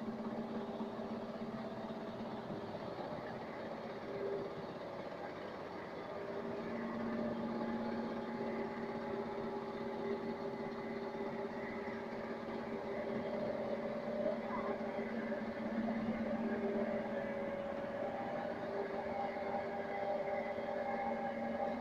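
Tailings dewatering vibrating screen and its two vibration motors running: a steady machine hum with several held tones over a rushing noise.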